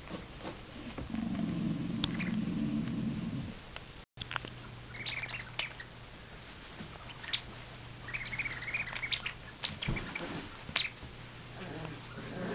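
One-month-old miniature bull terrier puppies squeaking and yelping in short, high-pitched clusters, with a low puppy growl in the first few seconds.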